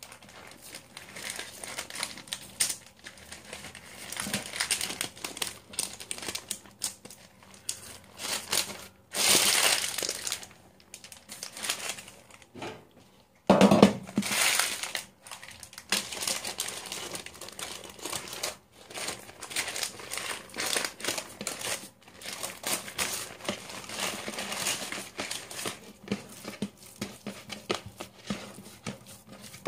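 Paper sheet crinkling and rustling as hands roll a raw meatloaf in it and peel it off onto a metal baking sheet, with louder bursts about nine and thirteen seconds in.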